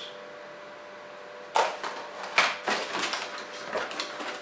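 Thin clear plastic bag crinkling and rustling as it is handled, starting about a second and a half in with a string of sharp crackles.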